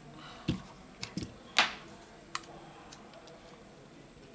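A handful of light clicks and taps as a smartphone and its loose display module are handled on a silicone repair mat. The clicks come about five times in the first two and a half seconds, the loudest about a second and a half in.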